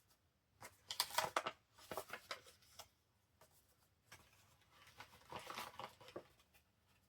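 Paper rustling and crinkling as handmade journal pages and paper ephemera are handled and turned, in three short flurries about a second in, around two seconds in, and again around five to six seconds in.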